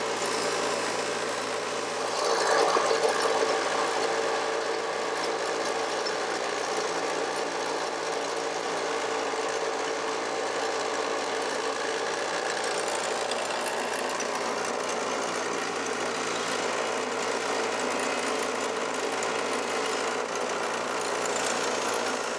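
Bench grinder running with the sole of a steel Milled Grind 2 golf wedge held against the spinning wheel, grinding and smoothing its shape: a steady grinding noise over the motor's hum, a little louder about two seconds in.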